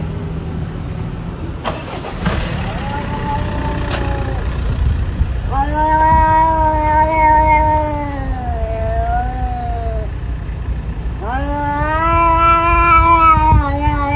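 Domestic cat yowling: three long, drawn-out, wavering calls, the last two lasting several seconds each. The kind of caterwaul a cat makes in a standoff with another cat. A steady low rumble runs underneath.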